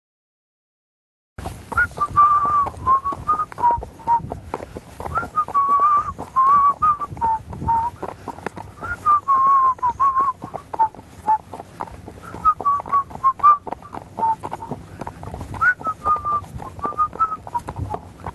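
A whistled tune, a slow melody of gliding and wavering notes, begins after about a second and a half of silence. Frequent short knocks and clicks run beneath it.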